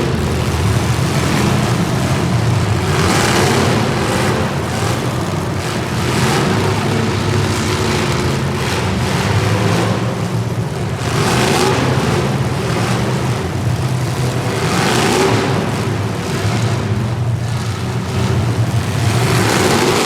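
Race vehicles running laps on a short track, their engines passing by in swells about every four seconds over a steady background engine drone.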